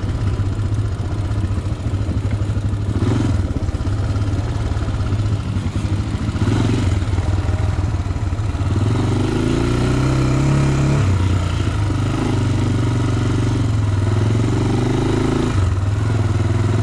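Honda ATV's single-cylinder four-stroke engine running at trail speed. It grows louder about halfway through, the revs climbing briefly and then dipping as the throttle is worked.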